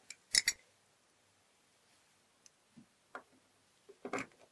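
Metal clicks and clacks of a pair of water-pump pliers being picked up and set against the open steel lock case. There is a sharp double click just after the start, a few faint ticks, and another louder clack near the end.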